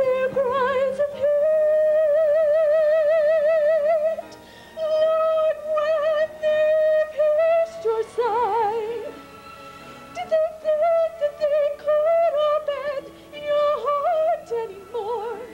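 Wordless solo singing with a wide, fast vibrato. It holds long notes broken by short pauses, over a soft sustained accompaniment.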